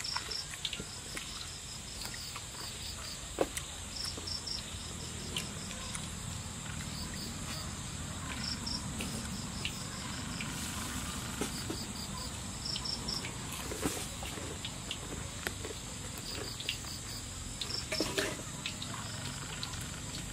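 Crickets chirping in short repeated pulses over a steady high insect drone, with scattered small mouth clicks and smacks from eating close by.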